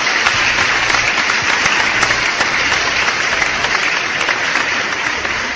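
Crowd applauding: dense, steady clapping from many hands, easing slightly near the end.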